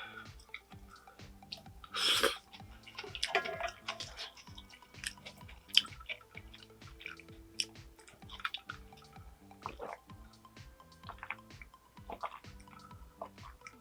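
Close-miked eating sounds: chewing with many short wet mouth clicks and a brief louder slurp-like noise about two seconds in, over quiet background music.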